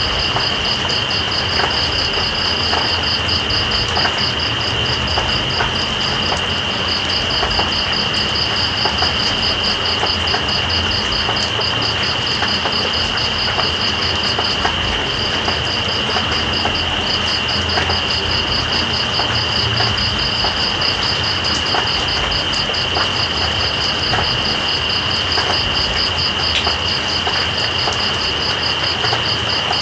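Insects calling over steady rain: one unbroken high drone and, above it, a fast pulsing trill that drops out briefly around the middle, over an even hiss of rain with scattered drop ticks.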